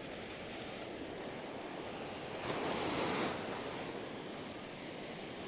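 Ocean surf breaking and washing up the sand, a steady rush with one wave swelling louder about halfway through.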